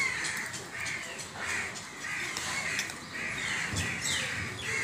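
Crows cawing over and over, about two calls a second.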